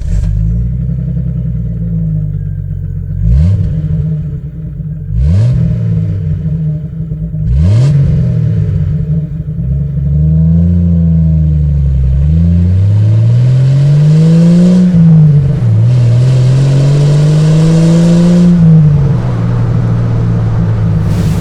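Jeep Wrangler TJ's exhaust through a Pypes SJJ15S stainless catback system with a new muffler, idling and being revved. There are three quick throttle blips, then three longer revs that climb and fall back, and it settles to a steady idle near the end.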